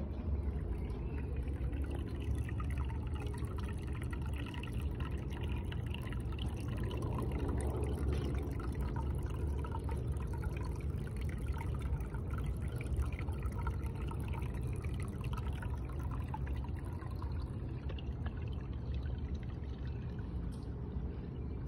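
Water pouring and splashing steadily, with a low rumble underneath.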